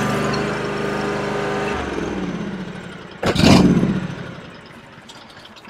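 Mower engine running steadily, then shut off and winding down with falling pitch. Just after it dies there is a single loud bang, then quiet.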